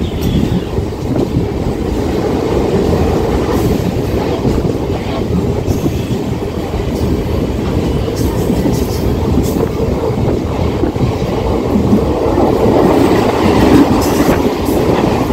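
Mumbai suburban local train running along the track, heard from on board: a steady rumble of wheels with rapid clickety-clack over the rails. It grows louder in the last few seconds as another local train passes close alongside on the next track.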